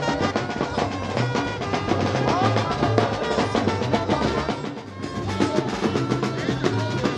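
Lively band music driven by marching drums: rapid snare drum strokes and rolls over a pulsing bass drum beat.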